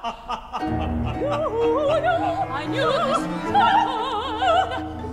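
Operatic female singing with a wide vibrato, the vocal line climbing in pitch, over an orchestra holding low sustained notes that come in about a second in.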